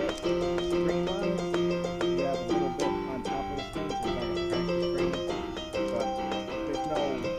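Background music: a keyboard tune of held notes over a steady beat.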